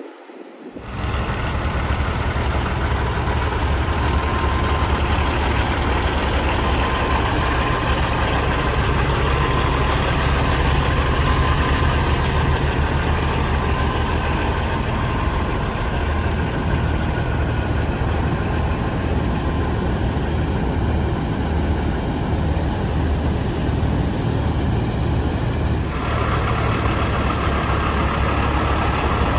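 Big-rig semi-truck diesel engines idling, a steady deep engine note; the sound changes near the end.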